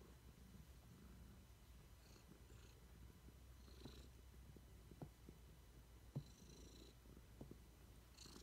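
Domestic tabby cat purring, a faint steady low rumble, with a couple of faint clicks about five and six seconds in.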